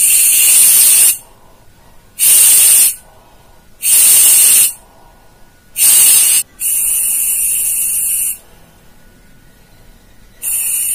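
Oxycan portable canned-oxygen can hissing in repeated spurts as its top valve is pressed to release oxygen into the cap mask for inhaling. There are about six bursts of about a second each with short pauses between them. The later bursts are longer and quieter, and the last one starts near the end.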